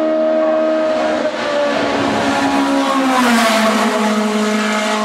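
Race car engine at high revs during a hillclimb run, coming up the hill toward the listener. It is loudest a little over three seconds in as it goes by, its pitch dropping as it passes and then holding lower.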